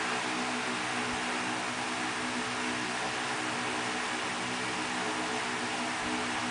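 Electric stand fan running: a steady, even hiss with a low hum under it.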